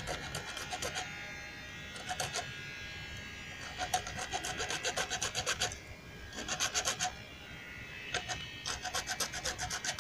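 Hacksaw blade cutting partway through a small PVC pipe, in bursts of quick back-and-forth strokes, about six a second, with short pauses between bursts.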